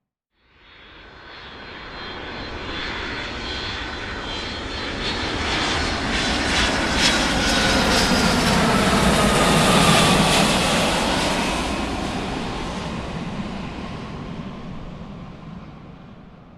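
A large aircraft flying overhead: its engine noise swells from silence to a peak about ten seconds in and then fades away. A high engine whine drops in pitch as the aircraft passes.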